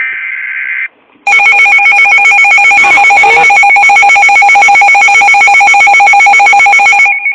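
Loud electronic emergency-alert alarm: after a short burst of warbling data tones at the start, a harsh, rapidly pulsing ringing tone begins just over a second in and keeps going, with a brief break near the end.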